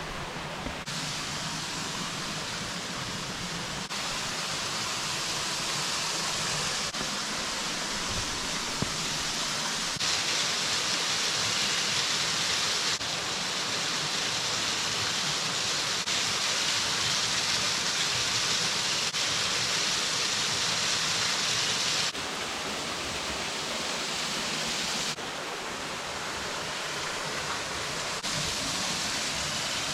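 Waterfall with its steady rush of falling water, heard across a run of short clips, so the level steps up or down every few seconds.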